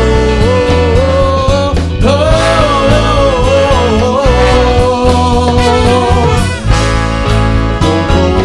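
Rock band music: a lead melody line sliding between held notes over a steady bass and regular drum beats.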